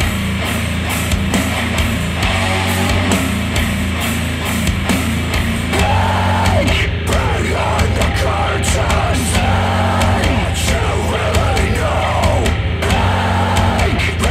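Heavy rock music playing through Monitor Audio Bronze 100 bookshelf speakers driven by a Cambridge Audio CXA61 integrated amplifier, loud and continuous with a steady bass line and a busier, more melodic part from about halfway in.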